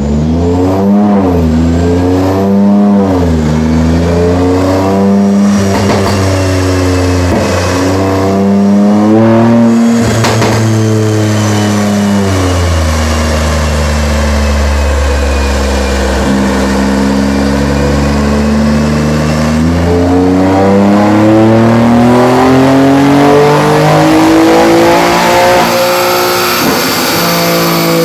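Chevrolet Colorado's 3.6-litre V6 with tuned intake and modified exhaust, revving on a chassis dyno with its rear wheels spinning on the rollers. The revs rise and fall several times in quick succession, settle to a steadier, lower pitch around the middle, then climb again near the end. There is one sharp crack about ten seconds in.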